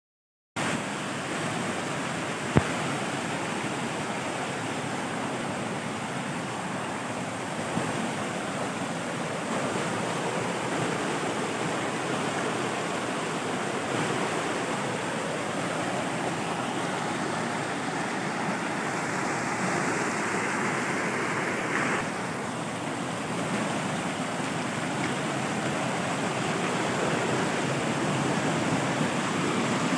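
Mountain stream rushing steadily over rocks in small cascades and white water. There is a single sharp click about two and a half seconds in.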